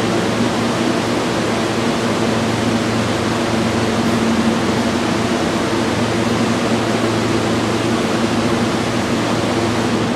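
R160-series New York subway train standing at the platform, its air-conditioning and onboard equipment running as a steady low hum over a loud, even hiss.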